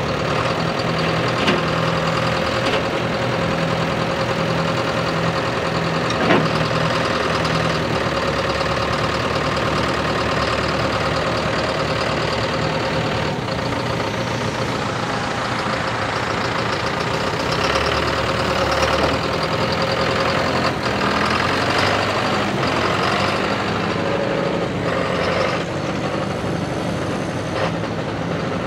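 John Deere 6330's four-cylinder turbocharged diesel (JD 4045HL480) running steadily while the tractor works its front loader and moves off, with a constant whine over the engine. There is a sharp knock about six seconds in.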